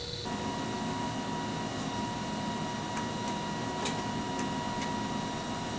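Steady whir and hum of 2-inch Ampex quad videotape machines and other running equipment in a broadcast machine room, with a steady high tone. There are a few faint clicks in the middle of the stretch.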